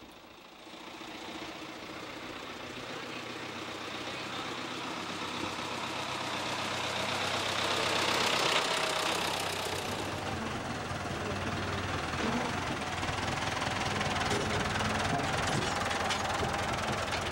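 Farm tractor engine running as the tractor drives up, growing louder over the first several seconds and then holding steady.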